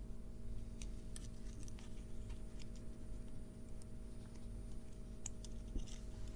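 Scattered light clicks and ticks from small electronic components and hand tools being handled on a workbench, over a steady low electrical hum.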